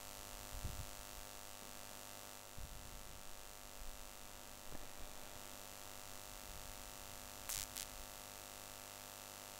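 Steady electrical mains hum and hiss, with a few faint low bumps and two quick sharp clicks near the end.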